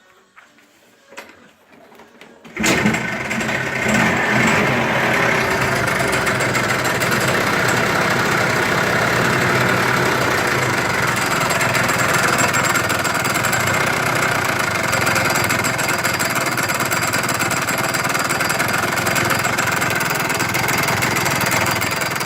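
A Chinese Yamaha-copy scooter engine starts about two and a half seconds in and then runs steadily with a loud, rapid knocking, a sound called very frightening. The knock comes from the variator, which had worked loose on its nut for lack of a washer.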